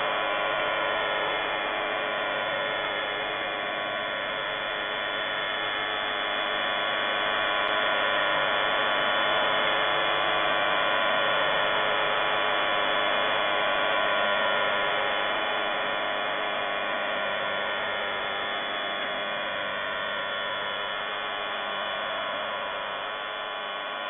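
An unidentified shortwave signal on 5211 kHz, heard through an SDR receiver: a steady buzzing drone of many stacked tones that swells slightly in the middle. The uploader takes it for jamming or an unknown transmitter.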